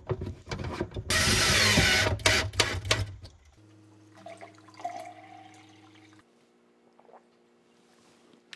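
Knocks and clatter, with about a second of loud rushing noise, as the reverse osmosis system's power supply is fastened under the sink. Then a faint trickle of filtered water from the RO faucet filling a drinking glass, its pitch rising slightly.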